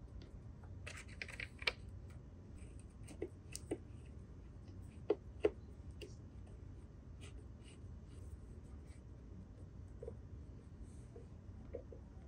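Scattered small metallic clicks and scrapes of a Phillips screwdriver and screws being worked back into a Honda mower's blade clutch assembly, with two sharper clicks about five seconds in, over a steady low rumble.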